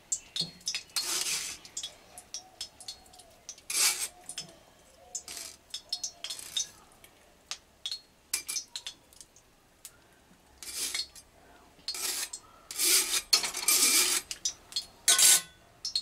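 A metal spatula scraping and clinking against a stainless-steel mesh strainer and a steel mixer-grinder jar as boiled flat beans are pushed into the jar: a series of short scrapes and clinks, with a longer run of scraping near the end.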